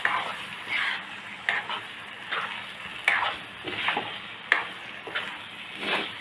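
Spatula scraping and turning soaked raw rice and masala in a wok, with about ten quick strokes, roughly one and a half a second, over a steady sizzle of frying.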